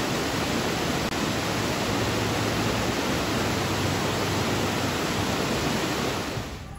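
Steady, even rush of flowing river water, which fades out near the end.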